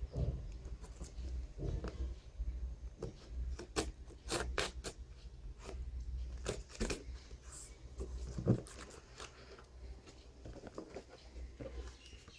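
Cardboard and plastic packaging being cut and pried open by hand with a small blade: irregular crunches, scrapes and clicks, with a sharper snap about eight and a half seconds in.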